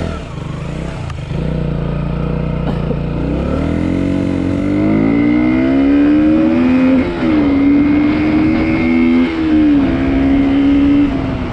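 Motorcycle engine pulling away and accelerating, its pitch rising through the lower gears, with brief dips at gear changes about seven and nine seconds in, then running steadily.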